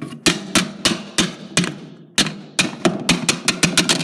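A rapid series of blows smashing a small plastic toy hairdryer inside a box, about fifteen sharp knocks with a brief pause about halfway and quicker strikes near the end.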